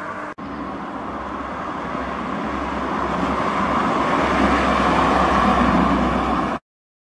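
Black Mk2 VW Golf driving past, its engine and tyre noise growing steadily louder as it approaches. A brief gap comes less than half a second in, and the sound cuts off abruptly near the end.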